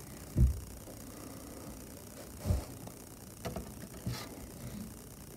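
Handling noise of small model scenery pieces being worked by hand: two dull thuds about two seconds apart, then a few light clicks and a short rustle.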